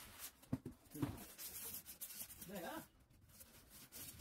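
Polystyrene foam packing insert scraping against the sides of a cardboard box as it is pressed down over a plastic-wrapped part, with plastic bag rustling. It starts with a sharp click, and the scraping runs for about two seconds before dying away.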